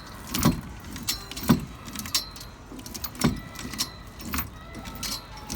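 A series of sharp, irregular knocks and clinks, about eight in five and a half seconds, each with a dull low thud and a bright metallic edge.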